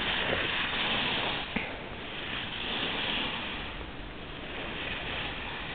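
Skis sliding and scraping over packed snow: a steady hiss that swells and eases, with a single click about a second and a half in.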